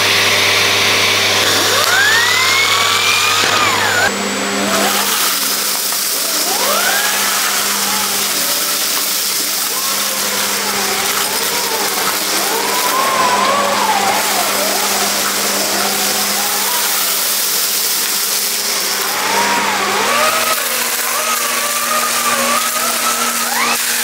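Bosch Series 2 bagged canister vacuum cleaner running with its turbo brush floor head pushed over a carpet, sucking up spilled debris. Steady rushing airflow over a motor hum whose pitch steps up about four seconds in and again near the end.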